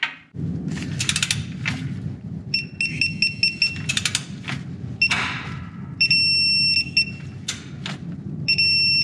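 Electronic torque wrench ratcheting a new drain plug into a rear differential, with clicks from its ratchet head. It then beeps: a run of quick short beeps, then a steady beep held about a second and another near the end, signalling the set torque of 27 ft-lbs.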